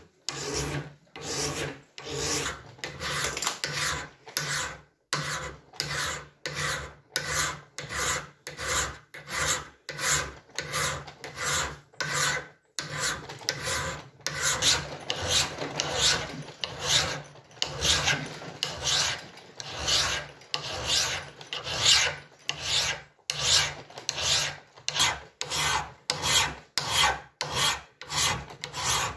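Hand file rasping back and forth across the top of an iron scale weight clamped in a vise, in a steady rhythm of about three strokes every two seconds, smoothing the rust-pitted metal flat.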